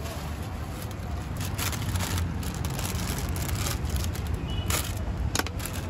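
Street ambience: a steady rumble of passing traffic, with scattered clicks and clatter over it.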